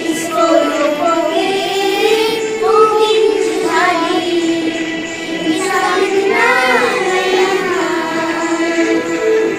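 Music: a song with a sung melody, the voice holding and bending long notes.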